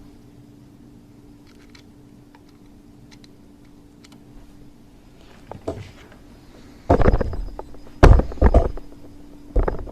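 A steady low hum with a few faint ticks, then several loud, short thumps and rustles near the end, like things being handled close to the microphone.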